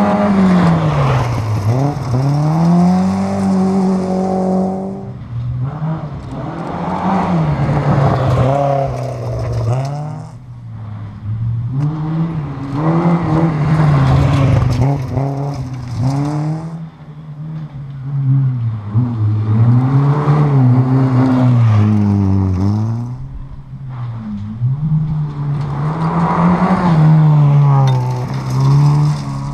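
Volvo saloon rally cars accelerating hard past on a gravel stage, one after another, their engines revving up and dropping back again and again through the gear changes, each pass swelling and fading.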